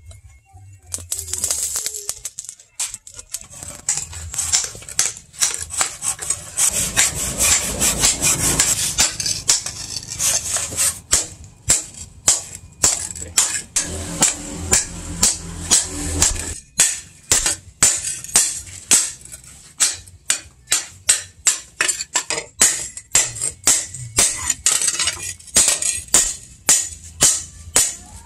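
Hand hammer striking a hot hoe blade of disc-plough steel held in tongs on a steel stake: sharp metallic blows that start about a third of the way in and settle into an even beat of about two a second. Before the hammering there is a stretch of steady noise.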